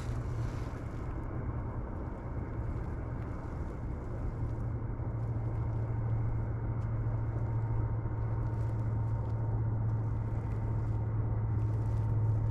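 A boat engine's steady low drone, a little louder in the second half.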